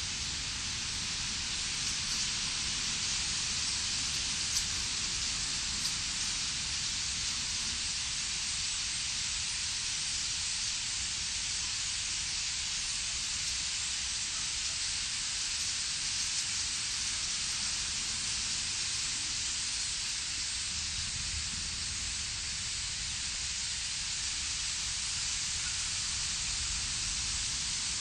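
Massed calls of a huge flock of European starlings, blending into a steady, even high hiss with no single call standing out.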